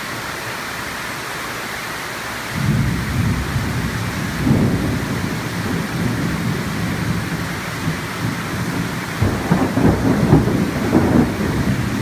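Heavy rain of a tropical thunderstorm hissing steadily. A low roll of thunder comes in suddenly about two and a half seconds in, and a second, louder roll with sharp cracks starts near nine seconds.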